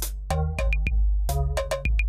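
Electronic background music with a drum-machine beat, deep bass pulses and held synth chords.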